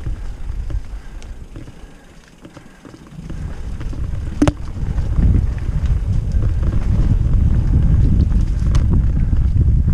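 Mountain bike riding fast down a dirt singletrack: wind buffeting the camera microphone and tyres rumbling over the trail. The rumble dies down briefly about two seconds in, then grows loud as the bike picks up speed, with a sharp knock from the bike about halfway through.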